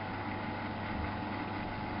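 Miele Novo Super W933 washing machine running: a steady, even mechanical hum with a low drone and hiss, no change in its course.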